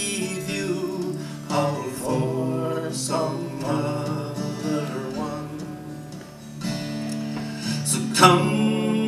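Acoustic guitar strummed as accompaniment to a man singing a slow traditional Irish ballad.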